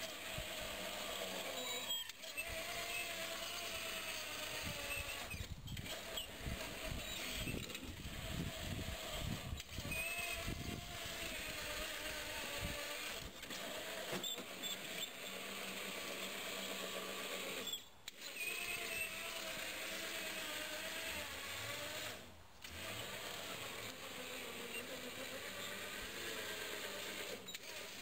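Electric walk-behind tractor's drive motor and gearing whining as it drives and pushes dirt with its front loader. The whine wavers in pitch and breaks off briefly several times, with low rumbling knocks for a stretch in the first half.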